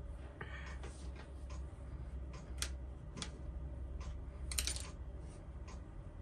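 Small plastic model-kit parts and hobby tools handled on a cutting mat: scattered light clicks and taps, with a brief scrape near the start and a cluster of louder clicks about four and a half seconds in, over a low steady hum.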